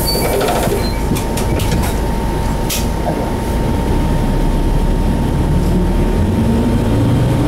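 Cabin running sound of a 1997 Hino Blue Ribbon HT (KC-HT2MMCA) two-step route bus with a 9.9-litre M10U diesel and five-speed rod-shift manual, driving along: a steady low engine drone with a faint steady high whine, and a few clicks and rattles about one to three seconds in.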